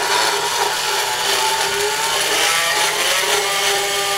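Motorized equine dental float running inside a horse's mouth, grinding down the sharp edges of the upper cheek teeth. A steady motor whine whose pitch wavers slightly, over a rasping grind.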